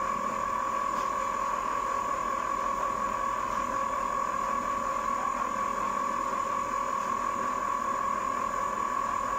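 Ice cream maker running: a steady motor hum with a constant high-pitched tone.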